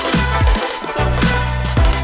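Electronic background music with sustained bass notes and a steady beat.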